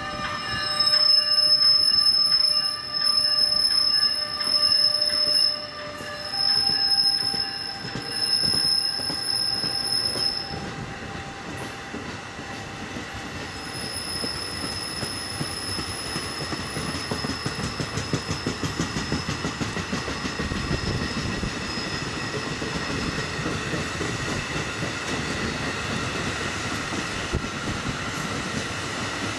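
A train passing with a shrill, high-pitched wheel squeal in several long stretches over the first ten seconds, fading back and returning more faintly, under the steady rumble of the rail cars rolling by.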